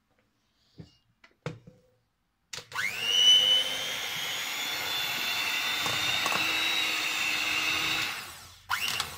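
Electric hand mixer switched on about two and a half seconds in, its motor whine rising quickly to a steady pitch as the beaters cream softened butter in a stainless steel bowl; it cuts off near the end. Before it starts there are a couple of faint clicks.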